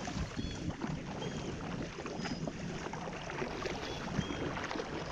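Canoe paddles dipping and pulling through the water, with splashes and drips off the blades and water running along the hull. Faint short high chirps recur every second or so.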